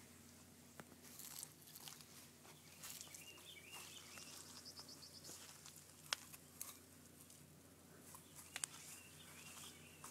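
Near silence: faint outdoor ambience with distant bird chirps, heard twice, and a few sharp clicks, the loudest about six seconds in.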